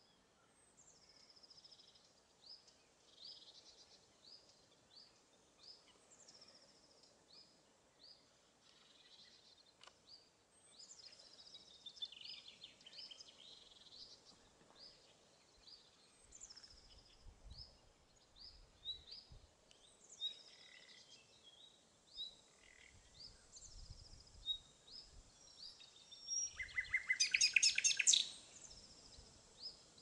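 Common nightingale singing: scattered short high notes, then near the end one loud phrase of rapidly repeated notes lasting about two seconds.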